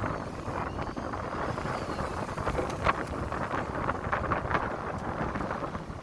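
Wind buffeting the microphone on the deck of a fishing boat, over the rush of a rough sea, with a few short louder bursts, the strongest about three seconds in.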